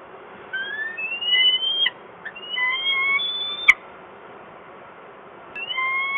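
Peregrine falcon giving three long, drawn-out calls, each rising slightly in pitch and then held before stopping abruptly. A sharp click ends the second call, and the third starts near the end.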